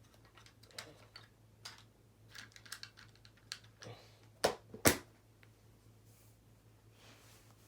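Light clicks and taps of small parts being worked by hand on a wiring project, with two sharper clicks close together about four and a half seconds in.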